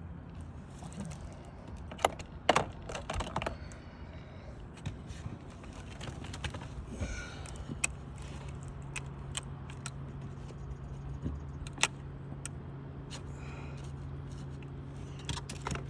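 Metal pry tool working under wood roof shakes to get at an old fastener: irregular clicks, taps and scrapes of metal on wood, with a cluster of sharper knocks about two to three and a half seconds in. A steady low hum comes in about halfway through.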